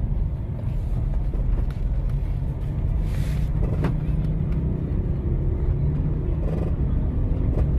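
Steady low rumble of road and engine noise inside the cabin of a Honda HR-V being driven.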